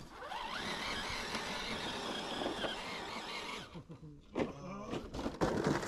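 RC crawler truck's electric motor and gearbox whining, the pitch rising and falling with the throttle as it climbs over rock. The whine drops away about three and a half seconds in, leaving scattered knocks and scrapes.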